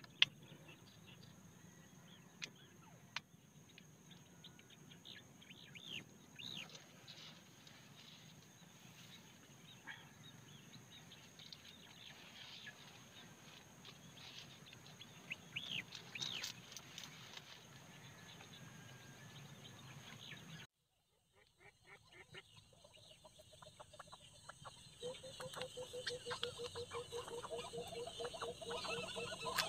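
Faint outdoor background with scattered bird chirps and a few light clicks. After a brief silence, a group of wild ducks calls in rapid, repeated chattering notes that grow louder toward the end.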